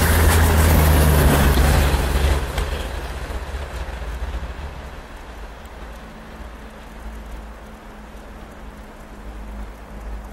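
Strizh high-speed train's Talgo passenger cars passing at speed: a loud rush of wheels on rail and air, with a low hum. About two and a half seconds in the tail goes by and the sound fades quickly to a faint low rumble and hiss as the train recedes.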